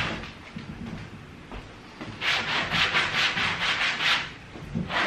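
Rubber brush scrubbing a fabric chair seat sprayed with stain remover, in quick back-and-forth strokes about four a second. Fainter for the first two seconds, then louder scrubbing, with a short pause near the end.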